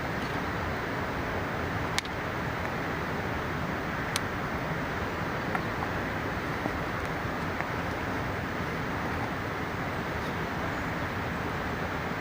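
Steady rush of a mountain river, with a campfire crackling over it: a few sharp pops, the loudest about two seconds in and another about four seconds in.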